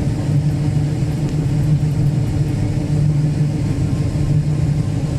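Combine harvester running steadily while cutting soybeans: a constant low drone with a strong, even hum.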